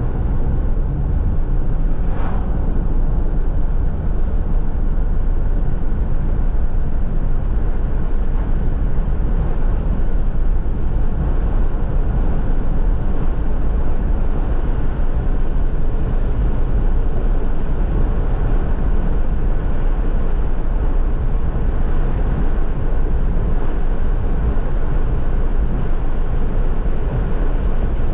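Steady road noise of a car driving on a highway, tyre rumble and wind heard from inside the cabin, with one brief click about two seconds in.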